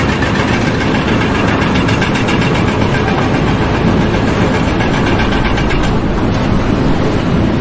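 Loud, steady machinery noise that cuts off suddenly at the end.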